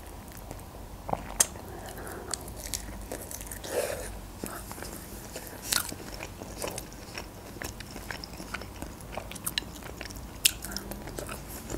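A person biting and chewing breaded chicken cutlet, with irregular small mouth clicks scattered throughout.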